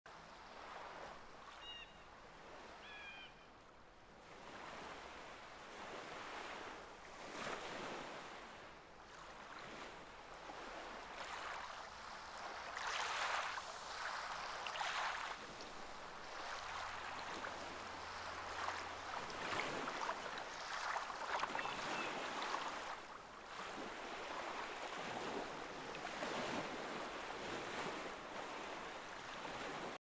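Choppy sea water washing and splashing in uneven surges, swelling and easing every second or two and getting louder partway through. A few short gull calls come about two seconds in, and a faint one later.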